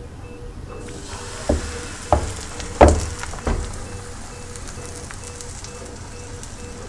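Pancake batter sizzling as it hits a hot, oiled frying pan; the sizzle starts about a second in and holds steady. Four sharp knocks come in the first half, the third the loudest.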